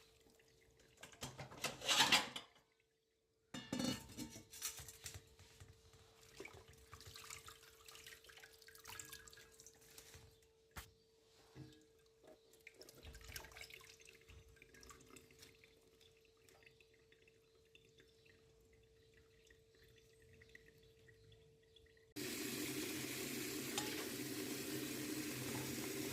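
Dry banana leaves being washed at a kitchen sink: water splashing and dripping with scattered rustles and small knocks, loudest about two seconds in. Near the end a tap runs steadily.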